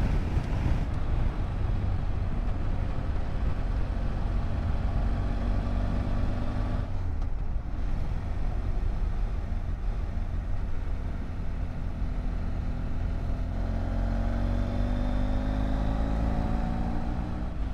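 Motorcycle engine running at road speed under a steady rush of wind. About seven seconds in it eases off briefly, then over the last few seconds its note climbs steadily as the bike accelerates.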